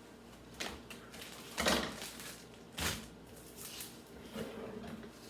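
A few irregular knocks and clatters of kitchen items being handled and set down, the loudest about a second and a half in.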